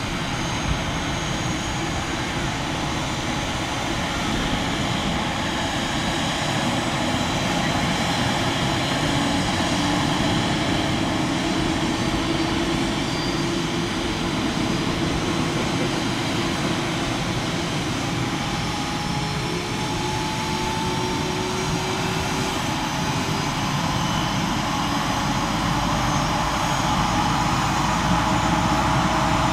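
Leonardo AW169 twin-turbine helicopter whining steadily while parked on the ground before takeoff, with a few tones slowly rising in pitch. The sound grows a little louder near the end.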